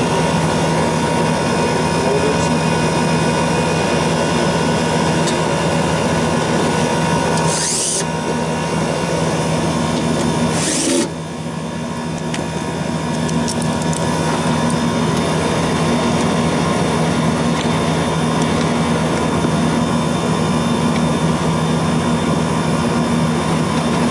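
R-22 refrigeration condensing unit running with a steady hum from its compressor and condenser fan. About a third of the way in, and again a few seconds later, a cordless drill/driver gives a short whirr driving a screw into the unit's cover panel.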